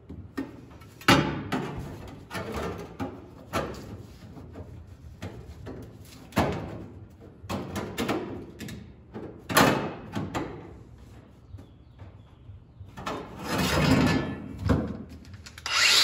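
A sheet-steel patch piece scraping and knocking against a car's steel floor pan as it is worked into place by hand, in irregular strokes with a longer rub near the end. Just before the end a cordless angle grinder starts up.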